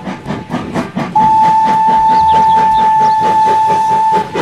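Steam-train sound effects from a toy Thomas the Tank Engine train: rapid, even chuffing, with one steady whistle that starts about a second in and is held for about three seconds.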